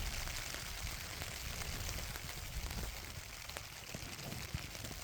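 Light rain falling on a tent, with scattered drop taps over a steady hiss.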